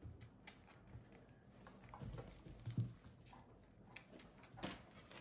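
Faint, scattered small clicks and soft rustles of handling while a baby squirrel is fed from a syringe, swaddled in a fleece blanket.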